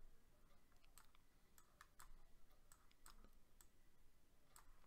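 Faint, irregular clicking of a computer mouse being used to draw strokes in a painting program.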